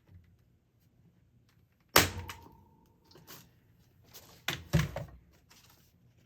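Knocks and handling noise from work on a wooden canvas frame: one sharp knock about two seconds in with a brief metallic ring, some rustling, then two more heavy knocks near the end.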